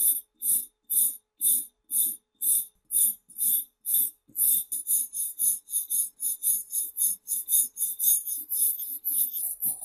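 Small wire brush scrubbing rust off a rusty antique iron padlock in rhythmic scratchy strokes. The strokes come about two a second and quicken to three or four a second about four and a half seconds in.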